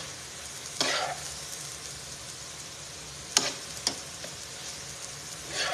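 Scrambled egg sauce sizzling in a skillet while a metal serving spoon scoops it, scraping and clicking against the pan a few times, with two sharp clacks a little past halfway.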